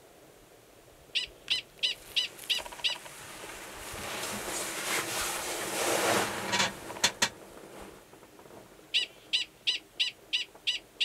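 A male Gunnison's prairie dog gives its mating call, a run of short, high, sharp barks at about three a second. It comes in bouts: six barks soon after the start, a couple more after a rushing swell of noise in the middle, then another run starting near the end. The mating call sounds identical to the species' alarm call; it is given by a male about to go underground to an estrous female.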